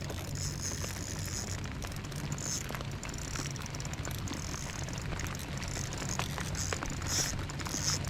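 Rain pattering, with many small scattered ticks of drops over a steady low hum.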